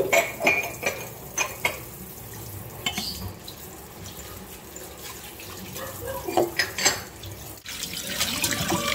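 Kitchen tap running into a stainless steel sink, with a few short clinks and knocks of dishes, mostly in the first couple of seconds and again later. Near the end, the running water splashes over raw chicken pieces being rinsed by hand in a metal bowl.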